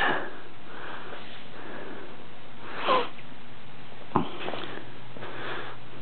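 Steady hiss of room noise, broken by a brief sniff at the start, a short falling sound about three seconds in, and a single click about four seconds in.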